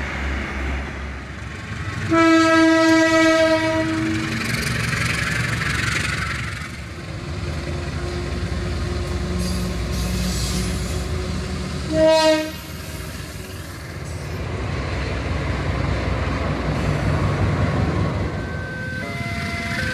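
Locomotive horn sounding a loud blast of about two seconds, then a short blast about ten seconds later, over the continuous rumble and wheel clatter of a passing train. Another horn starts up near the end.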